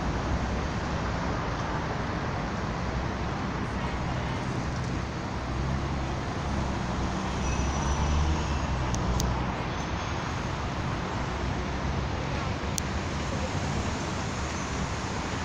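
Steady low rumble of city traffic with a continuous hiss, and two brief clicks in the second half.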